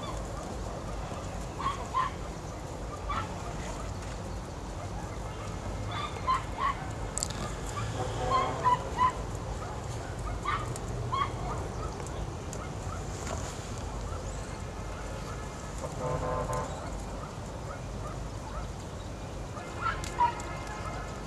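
Farm poultry calling every few seconds in short pitched calls, over a steady low rumble.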